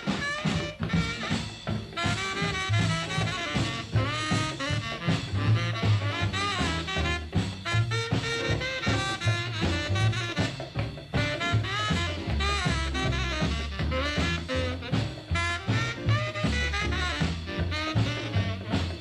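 1940s–50s jump blues record with no singing: a saxophone-led horn band plays over a stepping bass line and a drum kit keeping a steady swing beat.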